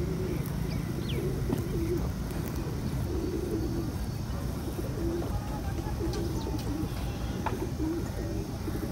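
Domestic pigeons cooing, short low calls repeating every second or so, with a few faint chirps from small birds over a steady low background noise.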